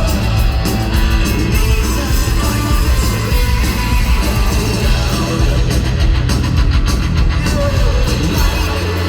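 Rock band playing loudly live, with electric guitars, bass and drums.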